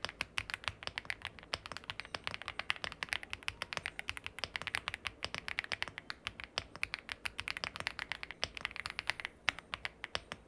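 Fast typing on an Aula F75 gasket-mounted mechanical keyboard with pre-lubed linear Graywood V3 switches and double-shot PBT keycaps. It is a quick, uneven run of keystrokes with a thocky sound, easing briefly near the end.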